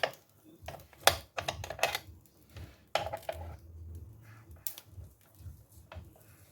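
Irregular sharp clicks and taps of a utensil against the waffle maker as the cooked waffles are lifted out, the loudest about one and three seconds in.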